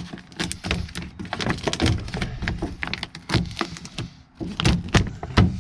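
Plastic moisture barrier sheet on the inside of a truck door being peeled down, crinkling and crackling in a quick run of sharp snaps.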